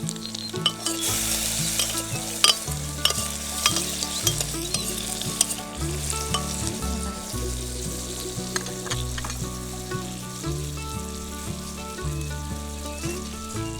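Food sizzling in hot oil in a pan, with scattered clicks of a utensil as it is stirred; the sizzle is loudest in the first few seconds.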